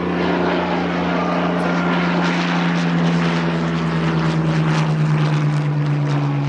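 Piston engine of a WWII-era propeller aircraft running steadily, its pitch sinking slowly through the second half.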